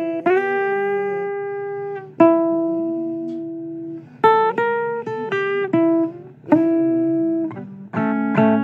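Guitar playing a blues accompaniment: notes and chords struck and left to ring for a second or two, with a quicker run of strikes around the middle.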